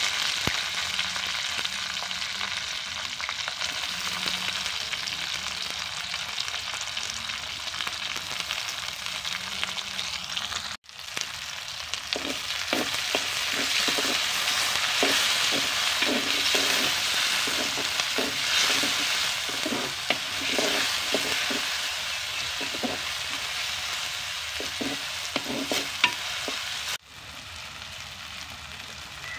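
Sliced onions and green chillies sizzling steadily as they fry in a clay pot. About eleven seconds in the sound breaks off briefly, then the sizzling goes on with the repeated scrape and knock of a wooden spoon stirring the vegetables against the pot. It is quieter near the end.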